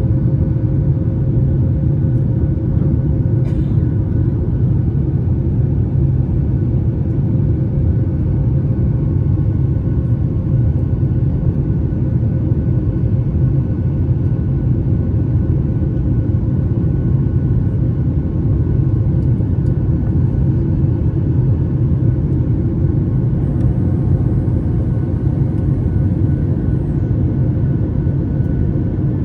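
Steady, loud rumble of a Boeing 737's jet engines and rushing air heard inside the passenger cabin, with a faint steady whine above it.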